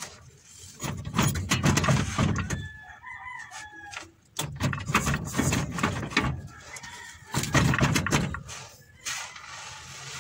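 A rooster crows once, a call of about a second and a half starting some two and a half seconds in, over repeated knocks and clatter of work on the vehicle's underside.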